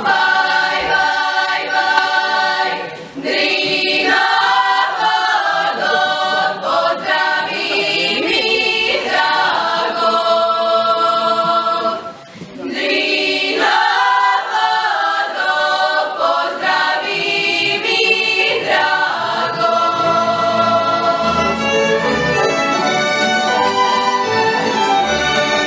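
A group of voices singing a Serbian folk song from Mačva, unaccompanied, in long held phrases with two short breaks for breath, about three seconds in and again around the middle.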